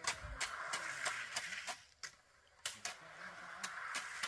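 A run of sharp knocks, about two or three a second with a short pause around the middle, over chickens clucking.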